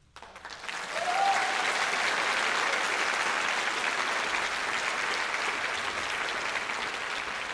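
Audience applause breaking out suddenly as the stage goes dark, building over about a second and then holding steady, with one short cheer about a second in.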